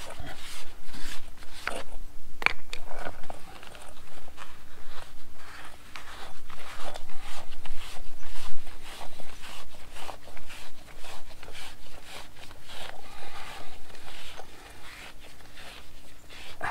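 Busy handling noise from dismantling antenna parts: a rapid, irregular run of scrapes, rubs and clicks, with one sharper click about two and a half seconds in, over a faint steady hum.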